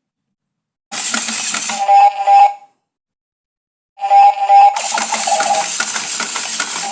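Retro telephone ringtone: two bursts of metallic, rattling bell-style ringing with a clear steady tone, separated by dead silence. The first burst comes about a second in and lasts under two seconds; the second starts about four seconds in.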